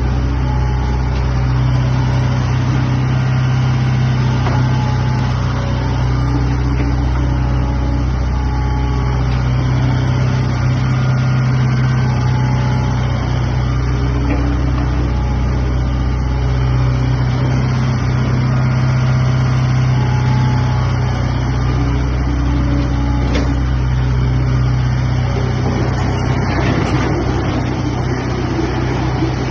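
Komatsu excavator's diesel engine running steadily with a deep hum, its level swelling and easing slightly every several seconds. A rougher rattling texture joins in near the end.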